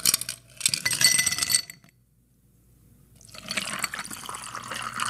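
Ice cubes clinking into a glass for about a second and a half, then, after a short pause, liquid pouring steadily into the glass.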